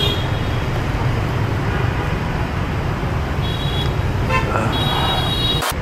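Street traffic with a steady rumble and short, high vehicle horn toots, one about three and a half seconds in and a longer one near the end. A sharp click follows the longer toot.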